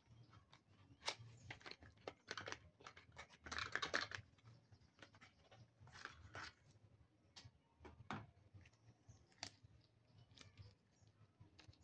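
Faint scattered clicks and light handling noises, with a short stretch of rustling or scraping about four seconds in.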